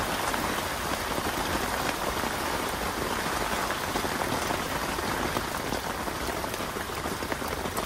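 Heavy rain pouring steadily onto the lake and bank, a dense even hiss of drops.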